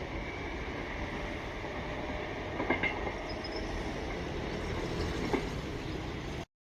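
Sanyo Electric Railway train running along the track, a steady rumble with two sharp wheel clacks over rail joints. The sound cuts off abruptly near the end.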